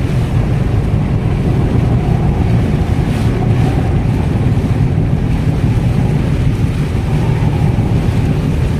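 Car driving through a typhoon downpour on a flooded road: a loud, steady low rumble of engine and tyres churning through standing water, with rain and wind noise over it.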